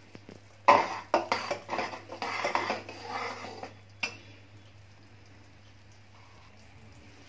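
Stainless steel kitchen utensils clattering and knocking against one another for about three seconds, with a last sharp clink about four seconds in. After that only a faint steady hum remains.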